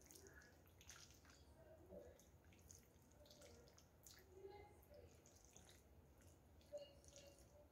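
Faint, wet squishing of a silicone spatula stirring creamy pasta in a pan, with a small click near the end.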